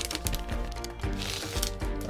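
Background music, with a brief rustle of packaging just past a second in as the keyboard PCB is lifted out of the kit.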